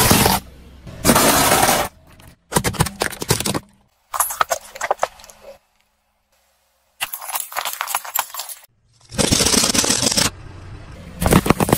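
A car tyre rolling slowly over small plastic toys and toothpaste tubes, crushing them in a run of short cut-together clips: bursts of crunching, cracking and snapping, separated by abrupt stops and one near-silent gap in the middle.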